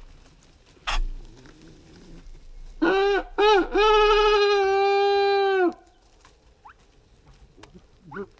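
A rooster crowing: two short notes, then one long held note that cuts off. A sharp knock comes about a second in, and near the end a run of short repeated animal calls begins.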